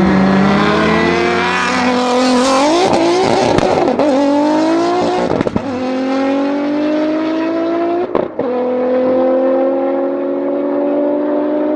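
Heavily modified Audi S4 B5 with a turbocharged RS4 twin-turbo V6, alongside a supercar, accelerating flat out from a rolling start. The engine note climbs steadily, breaking with a crackle at gear changes about five and a half and eight seconds in before it climbs again.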